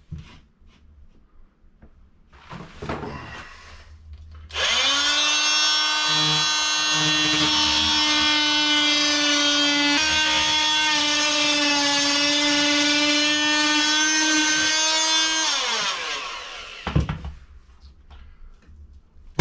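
Hand-held power tool cutting into drywall: its motor spins up about four and a half seconds in, runs at a steady high pitch for about eleven seconds, then winds down.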